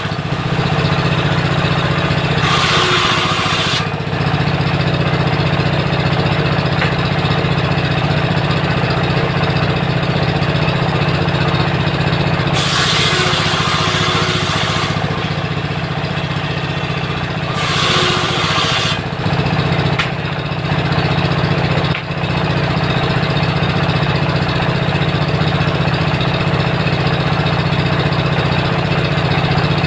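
A 16 HP diesel engine drives a table saw's circular blade and runs steadily. Three times, at about 3 s, 13 s and 18 s, a harsh high-pitched noise rises over it for one to three seconds as the blade rips through timber.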